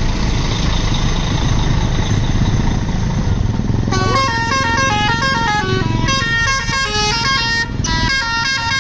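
Engine and road rumble for about four seconds, then a bus's multi-tone musical 'telolet' (basuri) horn plays a quick melody of stepping notes over it, with a brief break near the end.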